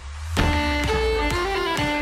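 Background music with string instruments; after a brief dip, a new passage starts about half a second in.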